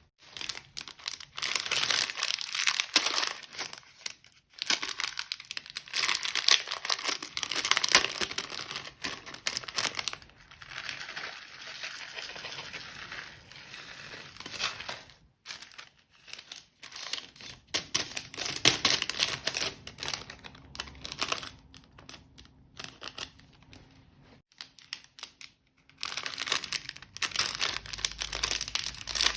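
Slime being squished, stretched and folded by hand, giving a dense crackly, sticky noise in bouts separated by short pauses.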